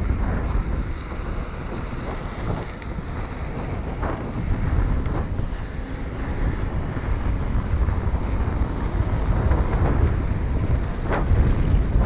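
Wind buffeting a handlebar-mounted camera's microphone as a mountain bike rolls along at speed, over the low rumble of its tyres, with a few faint clicks and rattles from the bike. The rumble gets louder near the end as the tyres leave the pavement for a grassy dirt track.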